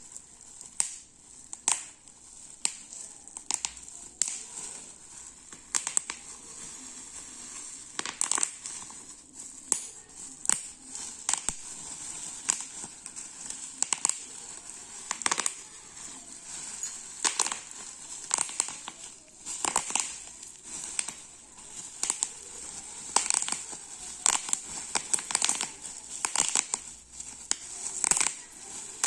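Bubble wrap being squeezed and crumpled by hand, its bubbles popping in sharp irregular pops, some singly and some in quick clusters, over steady plastic crinkling.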